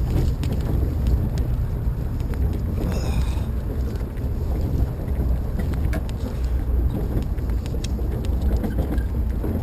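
Cracker box race boat's engine rumbling low and steady as the boat runs slowly on the water, with wind buffeting the onboard microphone.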